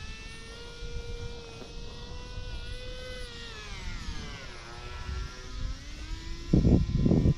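Electric motor and propeller of an AeroScout S2 RC plane buzzing overhead. Its pitch sways, dips to its lowest about four seconds in, then rises again. Near the end come two loud, low rumbling bursts.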